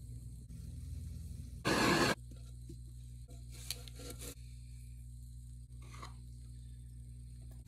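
Electric potter's wheel running with a steady low motor hum, while a tool and fingers scrape against the spinning clay; one short, loud scrape about two seconds in, and a few faint light scrapes later.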